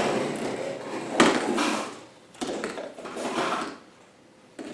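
Plastic wrapping rustling and crinkling in several bursts as it is pulled off a carpet washer's hose, with a short lull near the end.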